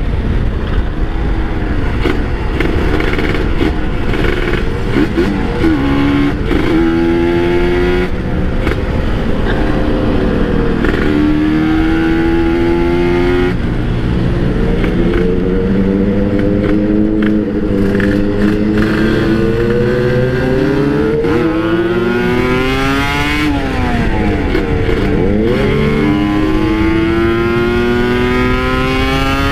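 Kawasaki Ninja 150 RR two-stroke single-cylinder engine being ridden, its pitch climbing over a few seconds and then dropping, again and again, as it accelerates and shifts gear.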